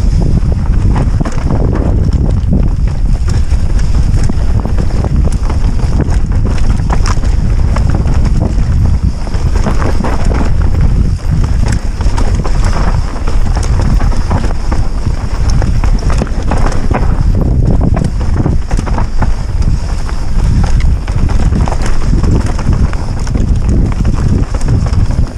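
Orbea Rallon full-suspension mountain bike descending rough dirt singletrack: a constant loud rumble of wind and tyres on dirt, dense with rapid rattling knocks from the bike over roots and bumps. Heard from a helmet-mounted camera.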